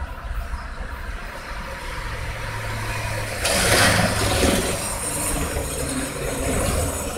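Street traffic: a vehicle engine hums steadily, and a louder rushing noise swells about three and a half seconds in and fades over about a second, like a vehicle passing close by.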